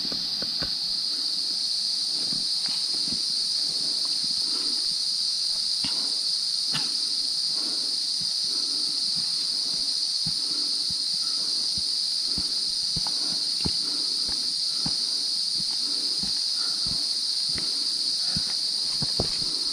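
Insects in tropical forest droning steadily in an even, high-pitched buzz. Underneath it, a hiker's footsteps land irregularly on the trail.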